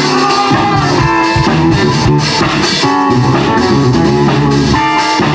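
Live jazz combo playing: electric guitar lines over bass guitar and a drum kit.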